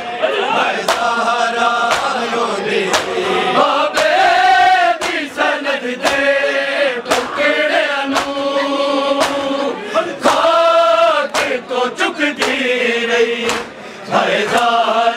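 Men chanting a Punjabi noha (Shia mourning lament) in chorus, with sharp slaps about once a second from matam, hands beating on chests in time.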